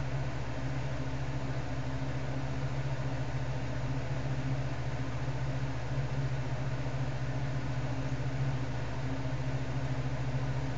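Steady low electrical hum with a constant hiss underneath, unchanging throughout: background noise of the recording setup.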